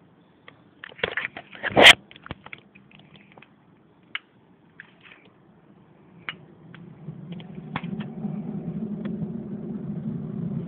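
A homemade ammonium nitrate–magnesium flash powder charge going off: a rush of crackling about a second in that ends in one sharp, loud pop, followed by scattered faint crackles and ticks. In the second half a steady low hum sets in.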